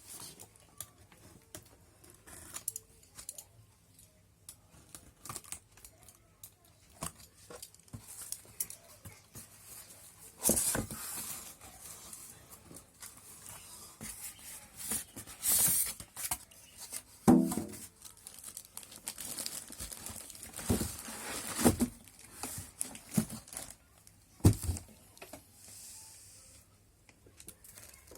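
Cardboard carton and packaging being opened by hand: tape and cardboard tearing, plastic wrapping crinkling, and irregular rustles and bumps of handling, with several louder tearing bursts spread through.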